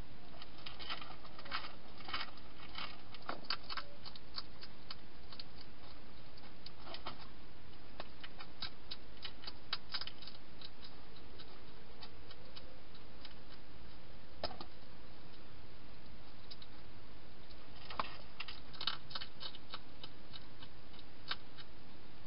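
Wild hedgehog eating dry food inside a plastic feeding box: irregular clusters of sharp crunching clicks, with a lull around the middle, over a steady hiss.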